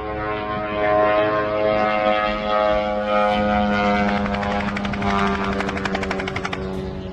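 Engine of a propeller-driven attack drone flying overhead, a steady pitched buzz that pulses rapidly for a few seconds midway.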